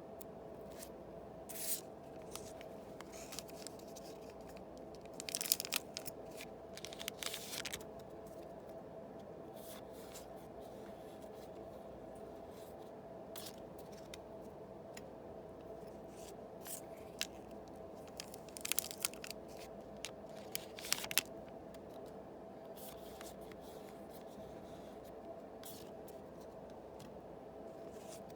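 Foil Yu-Gi-Oh booster pack wrappers being torn open and crinkled by hand, in two main clusters of sharp crackling rustles about five seconds in and about eighteen seconds in, with lighter scattered crinkles between. A steady hum runs underneath.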